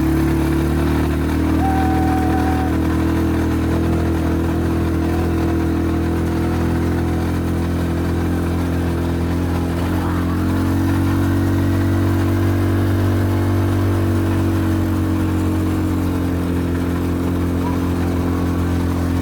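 A vehicle engine running steadily, its pitch shifting slightly about ten seconds in.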